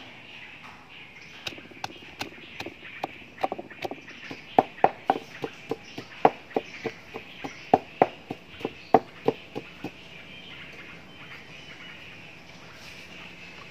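Wooden pestle pounding lemongrass, garlic and yellow spice paste in a mortar: a run of sharp knocks, about three a second, starting about a second and a half in and stopping near ten seconds.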